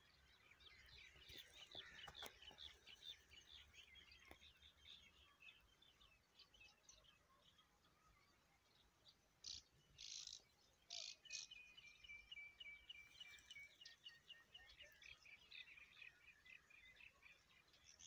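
Faint chorus of small birds chirping and twittering on and on, with a few short, harsh, louder notes about ten seconds in, followed by a thin high trill.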